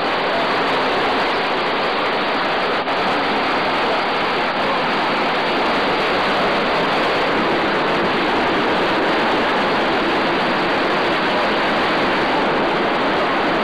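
Steady, loud rush of falling water from a waterfall, unbroken throughout.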